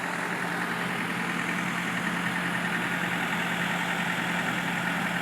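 The Nissan six-cylinder diesel of a 1988 Takeuchi TB68 compact excavator idling steadily.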